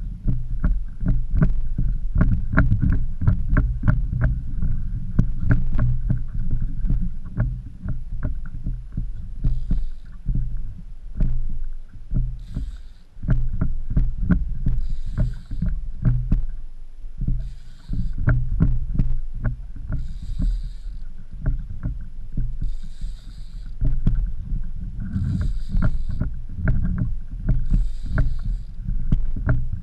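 Water slapping and knocking against a sit-on-top fishing kayak's hull over a constant low rumble. From about ten seconds in, a faint short whirr repeats roughly every two and a half seconds.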